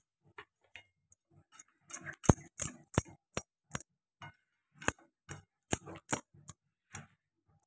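A spoon knocking and scraping against a cooking pan while stirring thick pav bhaji gravy: a run of sharp, irregular taps, the loudest about two and three seconds in.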